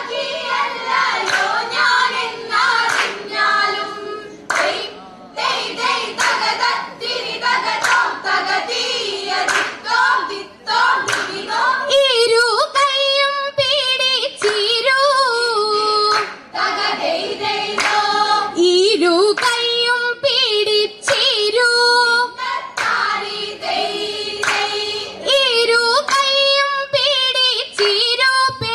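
Group of girls singing a Vanchippattu, the Kerala boat song, in chorus, clapping their hands in rhythm with the song.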